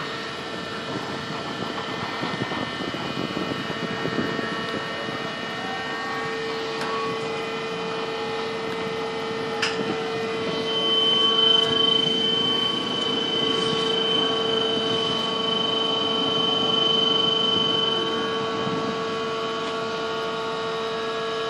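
Container crane's drive machinery running: a steady mechanical hum with a constant whine in it, and a higher whine joining about halfway through and holding for several seconds before it fades.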